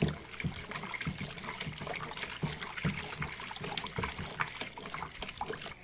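Foamy homemade liquid soap mixture sloshing and splashing in a plastic bucket as it is stirred with a stick, in a steady run of small irregular splashes.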